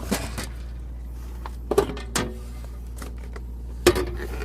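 A few sharp clicks and knocks of wiring and an amp clamp meter being handled at the defrost heater leads, the loudest near the end, over a steady low electrical hum.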